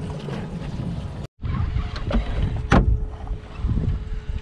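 Wind buffeting the microphone aboard a small open boat at sea, with a faint steady hum. The sound drops out for an instant about a second in, and a sharp knock sounds a little past the middle.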